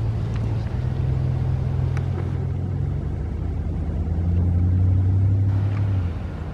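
A motor vehicle engine running close by: a steady low hum that stops about six seconds in.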